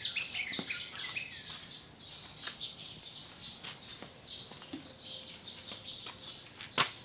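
Steady high-pitched insect drone with scattered short bird chirps over it, and a single sharp click near the end.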